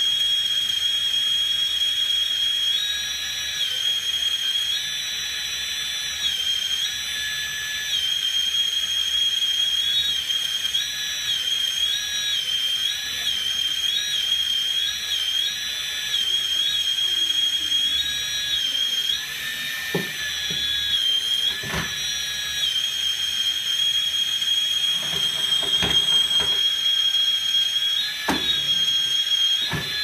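Whine of the hydraulic pump on a LESU 1/14 RC hydraulic crawler dozer, running steadily at a high pitch that steps up and down every second or two as the hydraulics are worked. A few sharp clicks come in the last third.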